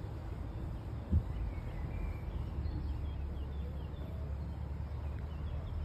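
Outdoor ambience: small birds chirping, a few short high calls at a time, over a steady low rumble. A brief knock comes about a second in.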